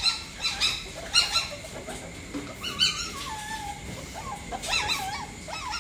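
Caged civets calling: short high-pitched squeaking calls several times over, with a longer wavering call that falls in pitch about halfway through.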